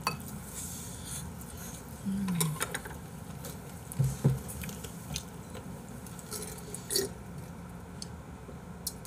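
Soft eating sounds: scattered small clicks and wet smacks of someone chewing, with a brief hummed 'mm' about two seconds in.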